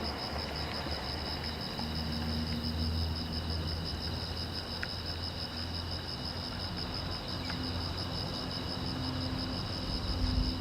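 Crickets chirping in a steady, fast-pulsing high trill that doesn't let up, over a low rumble.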